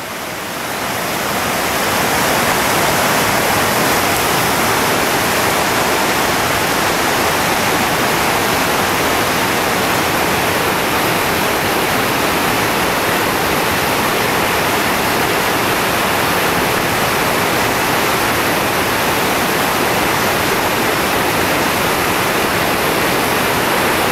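Chattooga River whitewater rapids rushing over boulders: a loud, even wash of water that swells over the first two seconds and then holds steady.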